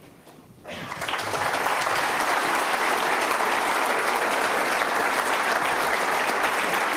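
Audience clapping, starting about a second in after a brief quiet and then going on steadily.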